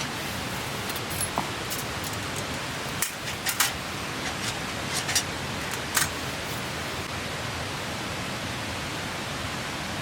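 Steady rushing of a clear stream, with a few scattered sharp clicks and light knocks over it.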